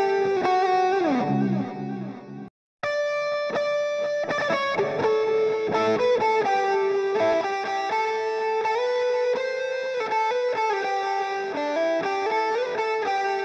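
Recorded electric lead guitar playing a melodic line of held, sustained notes, run through a transient designer plugin. Playback drops out briefly about two and a half seconds in and starts again.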